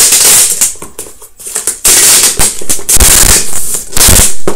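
Packing tape pulled off the roll of a handheld tape-gun dispenser as a cardboard box is sealed: a loud, crackling screech of tape unwinding, a shorter pull at first, then a longer one after a short pause.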